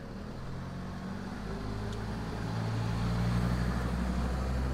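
A motor vehicle's engine running nearby as a low, steady hum that grows louder over the last couple of seconds.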